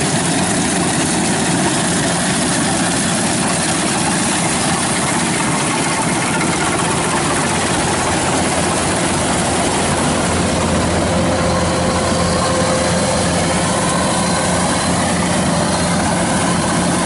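Kubota combine harvester running steadily under load as it cuts rice in a wet paddy, a constant engine drone with machinery noise over it.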